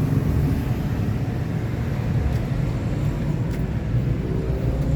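Isuzu Panther pickup's 2500cc direct-injection diesel engine idling steadily, with a few faint clicks.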